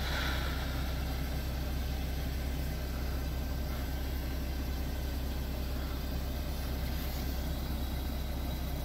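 Fire truck's engine running steadily, a constant low hum with no change in speed, as it powers the aerial ladder platform.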